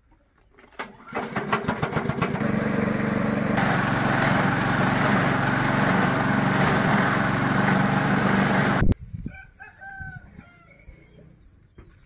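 Small petrol engine on a forage chopper starting about a second in and running steadily, with the blades shredding banana stalk into chips; the machine sound cuts off suddenly near 9 s, and a rooster crows shortly after.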